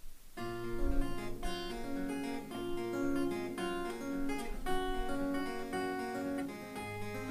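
Solo acoustic guitar playing a song's intro, strummed chords over a repeating bass note, starting just under half a second in.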